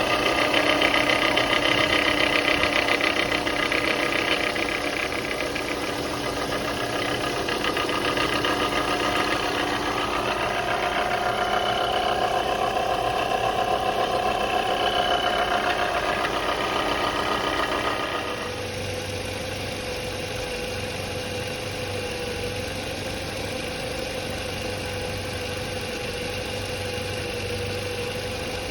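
Car engine idling with its alternator: for the first 18 seconds or so a loud whine of several steady tones, shifting in pitch about 10 seconds in, the sound of a bad alternator. About 18 seconds in it changes to a quieter, steadier hum with one clear tone, a good alternator running.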